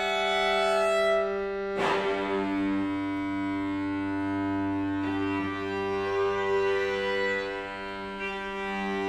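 String quartet of two violins, viola and cello playing sustained held chords. About two seconds in comes a sharp, accented attack, after which a low held note joins the chord.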